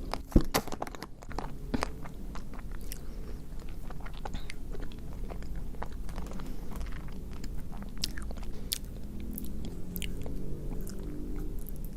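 Close-miked biting and chewing of a chocolate-coated ice cream bar: one sharp crack of the chocolate shell about half a second in, then steady wet chewing with many small crackles.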